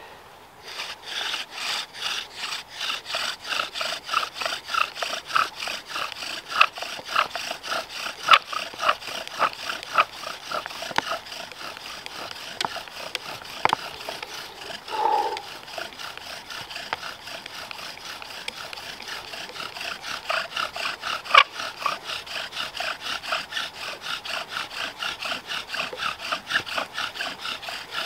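Bow-drill fire-making: the wooden spindle rubbing in the fireboard as the bow is sawed back and forth in an even rhythm, about two strokes a second, quickening over the last several seconds.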